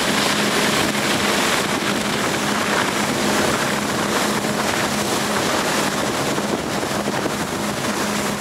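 Motorboat running at speed with a steady engine hum, under a constant rush of water spray from a barefoot waterskier's feet and wind on the microphone.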